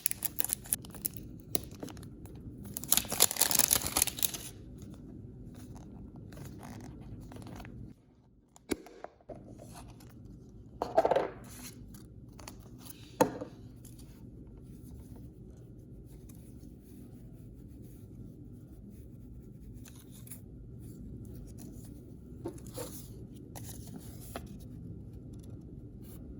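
Blind-bag packaging being opened: crinkling and a long tearing rustle about three seconds in, then quieter handling with a few short sharp sounds.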